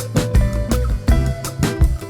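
Background music with a bass line, guitar and a steady drum beat.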